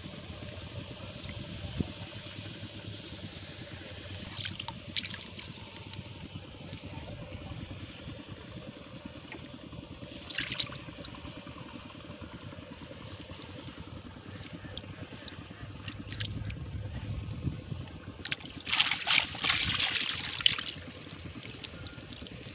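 Shallow water trickling and sloshing as hands work in it around a bamboo fish trap, with a few short splashes and a longer, louder burst of splashing about three-quarters of the way in, over a steady low rumble.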